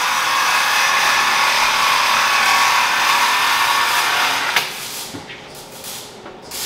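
A power tool running steadily, stopping abruptly about four and a half seconds in, after which only quieter clatter remains.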